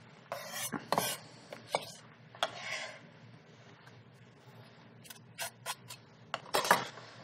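Chef's knife chopping fresh herbs on a wooden cutting board, rocking back and forth over them: irregular light knocks and scrapes of the blade on the board, in small clusters.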